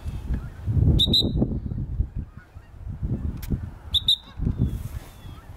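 Canada geese honking as a flock comes in, with two short high beeps about three seconds apart.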